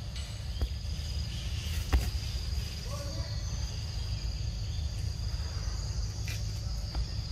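Steady high-pitched drone of a forest insect chorus over a low rumble, with a few sharp clicks, the loudest about two seconds in.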